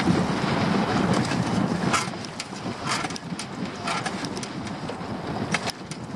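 Wind buffeting the microphone in a steady rumble, with choppy sea water slapping and splashing against a small dinghy's hull at irregular moments.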